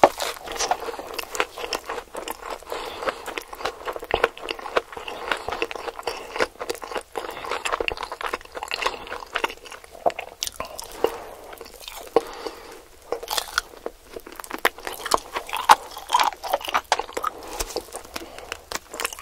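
A person eating snakehead fish and fresh vegetables by hand, with close, irregular chewing, biting and crunching.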